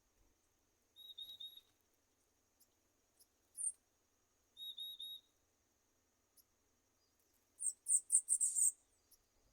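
Small songbirds calling: a short warbled phrase sung twice a few seconds apart, a brief falling note, then a loud burst of sharp, very high chirps near the end, over a steady thin high-pitched tone.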